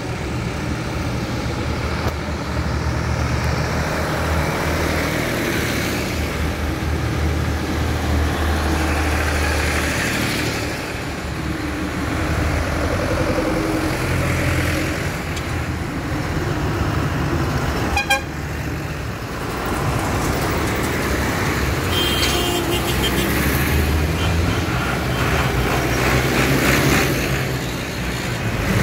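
Diesel farm tractors, among them red Massey Fergusons and a John Deere 2130, driving past one after another with their engines running steadily, each swelling and fading as it goes by. A single sharp knock sounds about two-thirds of the way through.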